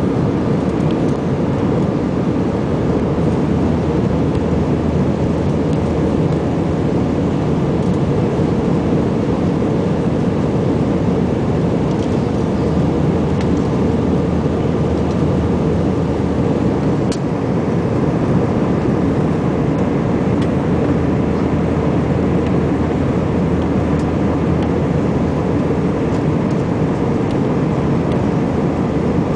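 Steady cabin noise of an Airbus A320-family jet in flight, heard from a window seat over the wing: the even, deep roar of the jet engines and rushing airflow, with a faint thin steady tone above it.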